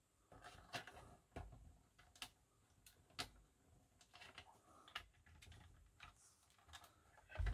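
Faint, scattered clicks and small creaks from the plastic case of an Iomega Zip 100 drive, pressed and flexed by hand to work its hidden clips loose. The clearest click comes about three seconds in.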